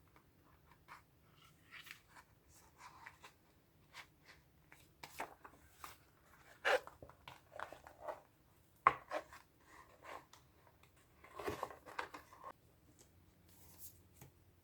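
Clear plastic planner cover being handled and fitted onto a small planner: scattered soft rustles and crinkles, with a sharp click past the middle and a longer rustle near the end.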